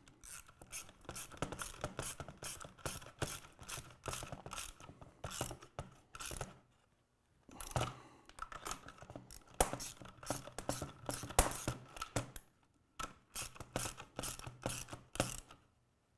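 3/8-drive ratchet wrench clicking in quick runs as flange head nuts are snugged down on a bolted-together plastic tri-hub wheel. The runs break off briefly twice, once near the middle and once about three-quarters of the way through.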